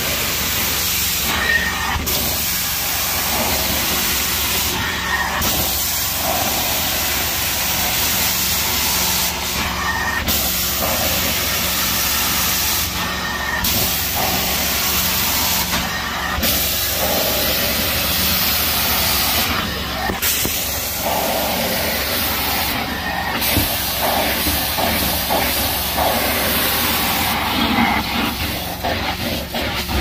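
Hot-water carpet extractor's stair tool spraying and vacuuming carpeted stair treads: a steady, loud rushing hiss of suction over a steady machine hum. The hiss briefly eases every few seconds between passes.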